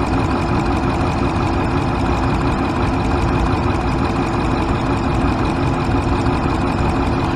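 2014 Ram pickup's V8 engine idling steadily while misfiring on cylinder 7 (code P0207, injector circuit). The mechanic traces the fault to a damaged harness connector.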